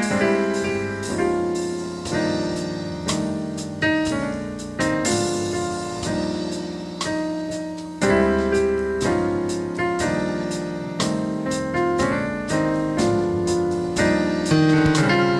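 Piano playing a run of chords, each struck and left to ring and fade before the next.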